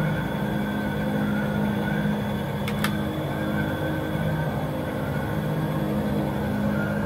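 A steady mechanical hum made of several held tones, with two sharp clicks close together a little under three seconds in.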